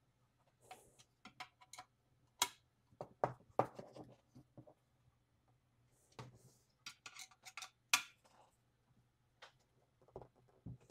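Scattered light metallic clicks and clinks as an aluminium extrusion frame is assembled by hand: a hex key tightening the M6 screws into the corner brackets, and the extrusion pieces being handled and shifted, with a couple of soft rubbing sounds.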